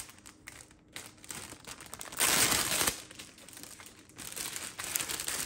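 Clear plastic packaging bag crinkling and rustling as hands pull a flower garland out of it, with a louder rustle lasting about half a second a little after two seconds in.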